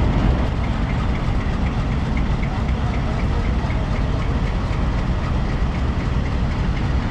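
Diesel locomotive engine idling steadily, with a faint, even ticking over the low rumble.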